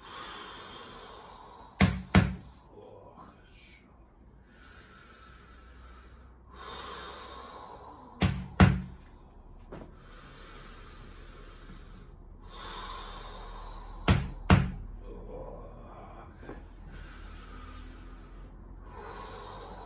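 A mallet striking a wooden chisel-like tool held against a man's neck and upper back: three pairs of sharp knocks about six seconds apart, two quick blows each time, a percussive manual spinal adjustment. Between the blows come slow, deep breaths in and out.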